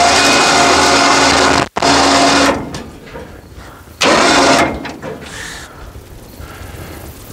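Electric winch running in bursts as it pulls a car up onto a car hauler's deck. It runs for about two and a half seconds with a brief cut-out, stops, then gives one short burst about four seconds in.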